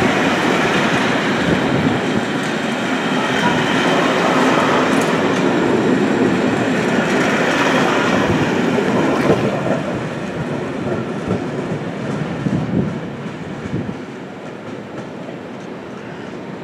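Passenger coaches of a departing train rolling past at low speed, wheels clattering over rail joints and points. The noise fades from about ten seconds in as the train pulls away.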